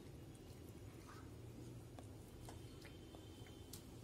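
Near silence, with a few faint clicks of a steel spoon against a steel kadai as thick chickpea curry is ladled into a bowl.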